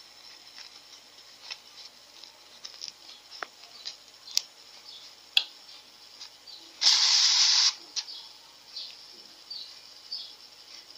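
Handling noise from hand-sewing a stuffed felt piece: scattered small clicks and rustles of fingers, needle and thread, with a loud hissing rasp lasting just under a second about seven seconds in.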